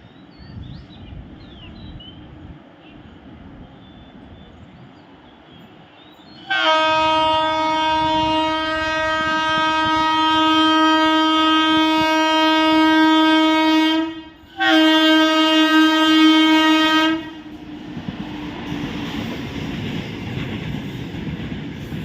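Horn of an Indian Railways WAG-9 electric locomotive. After the low rumble of the approaching train, it gives a loud blast of about seven seconds, breaks briefly, then sounds a second blast of about two and a half seconds. The rumble and clatter of the petrol tank wagons passing follow.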